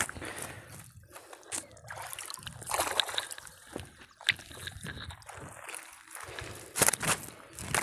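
Water sloshing and splashing against a small boat as a wet gill net is hauled in over the side and a fish is worked free of the mesh, with louder splashes about three seconds in and again near the end.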